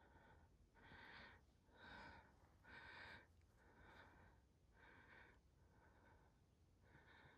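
Faint, quick breathing, about one breath a second, the first three breaths the loudest.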